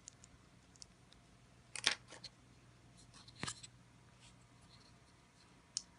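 Light clicks and taps of thin pre-cut pine pieces being handled and set together on a tabletop, with two louder knocks about two and three and a half seconds in.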